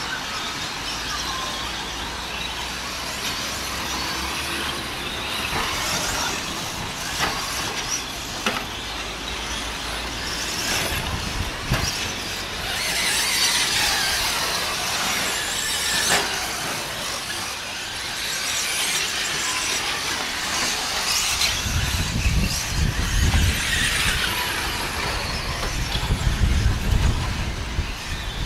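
A pack of 1/10-scale electric 2wd short-course RC trucks racing: a high-pitched whine from the motors and drivetrains that keeps rising and falling as they accelerate and brake, with scattered sharp knocks from the trucks landing and hitting things. A low rumble joins in the last few seconds.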